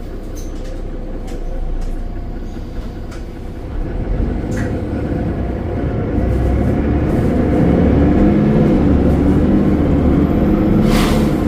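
Mercedes-Benz Citaro O530 bus's OM906 6.4-litre six-cylinder diesel running with a thrashy note, growing louder as it pulls under load. A short hiss comes near the end.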